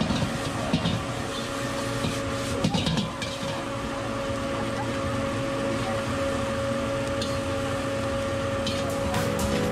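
Metal wok spatula scraping and clattering against a wok as fried rice is stirred and tossed over a gas burner. A few sharper scrapes stand out, about a second in, around three seconds in and near the end, over a steady hum and hiss.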